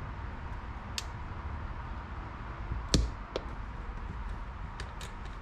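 Light clicks and knocks of tools and parts being handled on a workbench: one tick about a second in, a louder knock about three seconds in, and a few small clicks near the end, over a steady low background noise.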